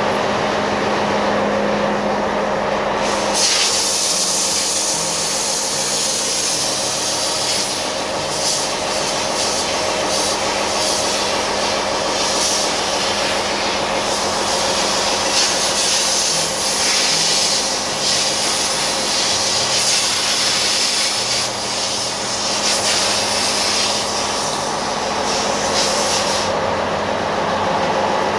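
Marine diesel auxiliary engine (ship's generator engine) running steadily in the engine room just after start-up, with a loud steady hiss joining it about three seconds in and cutting off shortly before the end.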